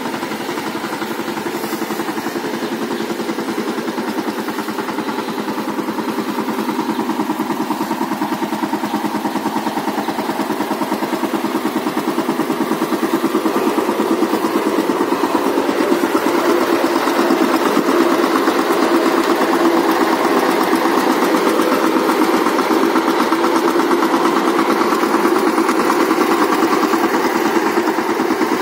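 Walk-behind power tiller's single-cylinder diesel engine running steadily as the machine is driven along, with a rapid, even firing beat that grows a little louder about halfway through.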